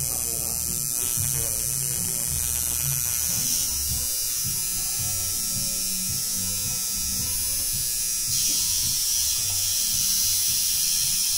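Coil tattoo machine buzzing steadily as it runs.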